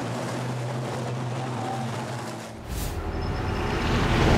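Diesel race trucks' engines running steadily as they pass on the circuit. About two-thirds through this gives way to a deep rumble and a swelling whoosh of a graphic sound effect, loudest at the end.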